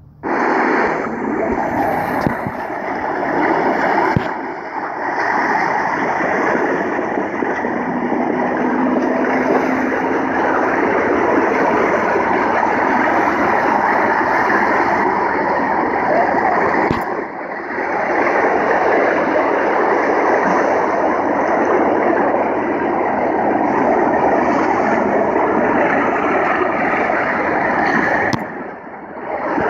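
Loud, steady rushing noise from a phone video of open water played back through a noise-reduction app. Its top end is cut back, so most of it sits in the middle range. It starts suddenly and dips briefly twice, about halfway and near the end.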